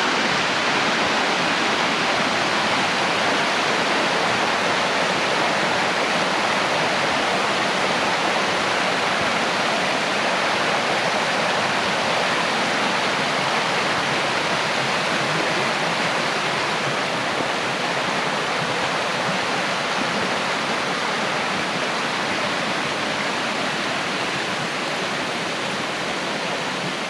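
Rushing water of a creek waterfall running high after heavy rain, a steady dense rush that eases slightly near the end.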